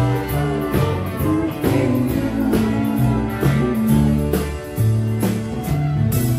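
Live band music playing at full level: guitar over a stepping bass line and a steady drum beat, in a country-rock style.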